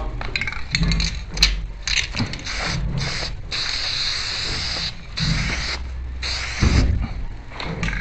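Aerosol spray paint can hissing in several short bursts as it marks a line on a concrete block wall. The longest burst is about a second and a half, followed by two shorter ones. A few sharp clicks and knocks come before the spraying.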